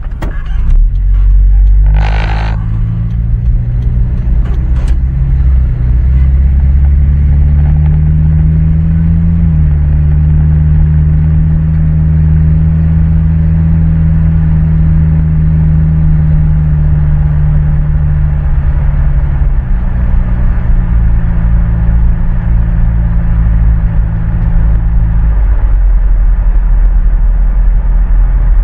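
Pickup truck engine and road noise heard from inside the cab while driving, a steady low drone whose pitch steps down, up and down again as the speed changes. A brief noise about two seconds in.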